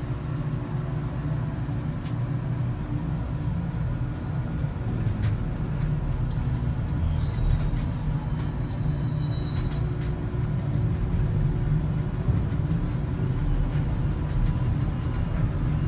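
Steady low machinery drone in the operator's cab of a mining cable power shovel as it swings its dipper out over a haul truck and back. About seven seconds in, a thin high tone sounds for a couple of seconds, and a few faint clicks come through.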